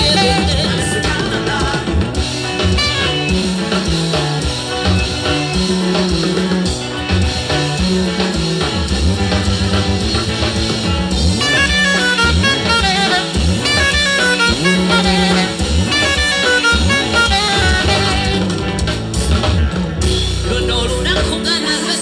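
Live band music: drum kit, bass, electric guitar and saxophone playing an upbeat dance song, with singing.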